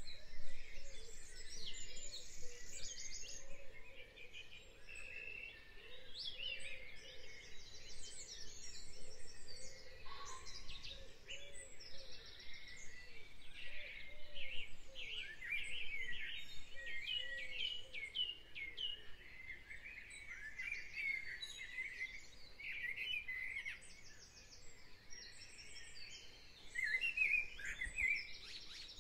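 A chorus of wild songbirds singing and calling, with many overlapping chirps and trills, and a lower repeated call underneath through much of it.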